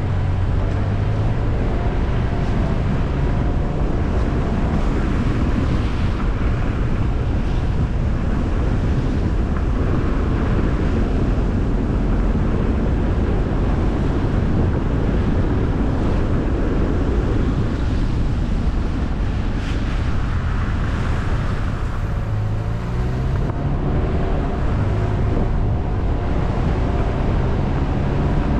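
Car driving at a steady speed: constant tyre and road noise with wind rushing over the microphone and a low engine hum underneath.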